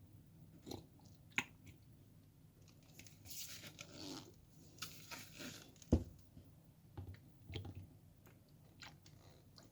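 Light plastic clicks and taps from handling a small lead-acid battery and a distilled-water container while filling its cells. There is a sharp knock about six seconds in, and two brief hissing stretches that fit water being squirted into the cells.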